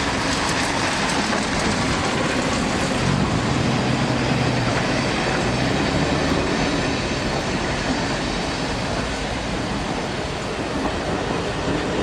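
Diesel locomotive passing at close range, its engine running with a steady low drone over the rolling of its wheels on the rails.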